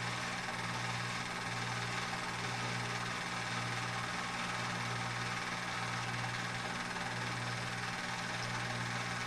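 Steady hum and whir of a cine film projector motor running, with hiss over it and a slight regular pulse about once a second.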